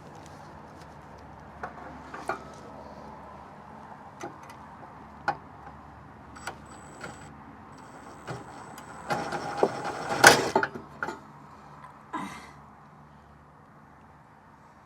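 Scattered clicks and knocks of hand tools and metal parts being handled, with a denser burst of rattling and clatter about nine to eleven seconds in, over a low steady hum.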